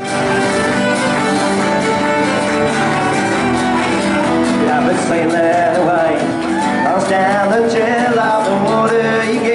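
Live acoustic song: acoustic guitars strummed steadily, with a man's voice singing in from about five seconds in.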